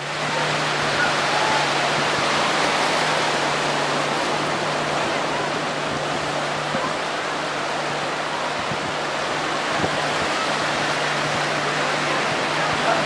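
A loud, steady rushing of water and wind noise, with a low steady hum underneath.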